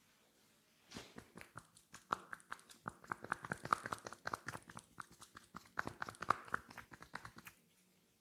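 Quick run of sharp taps from a masseur's hands striking the head during a head massage, about seven a second, starting about a second in and stopping shortly before the end.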